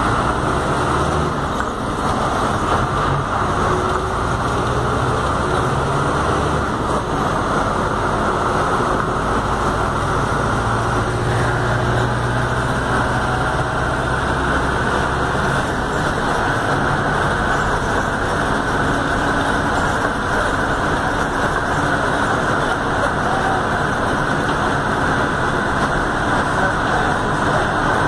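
Volkswagen 17-230 OD city bus heard from inside the cabin while driving: steady engine and road noise with no breaks.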